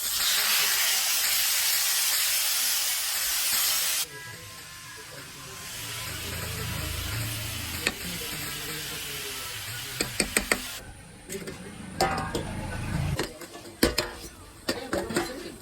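Chicken frying in hot oil: a loud burst of hissing sizzle for about four seconds that cuts off suddenly, then a quieter sizzle. From about ten seconds in come quick clicks and knocks, like a utensil against the pan.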